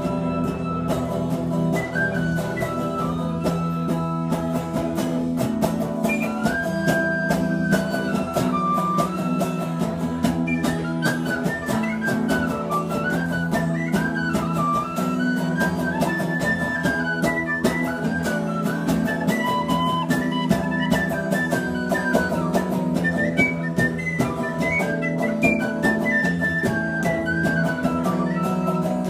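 Tin whistle playing a quick, ornamented melody that rises and falls, over steadily strummed electric guitar chords, in a live two-piece instrumental passage without vocals.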